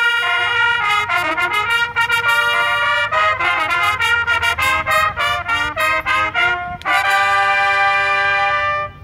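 Marching band's trumpet section playing a short fanfare: a held opening chord, a quick run of short notes, then a long held final chord that cuts off near the end.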